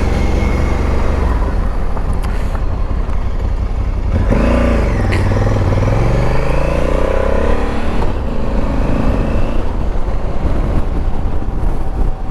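Honda CRF1100L Africa Twin's parallel-twin engine running under way, with a steady rumble and rushing noise; about four seconds in the engine note rises sharply, then falls and climbs again over the next few seconds.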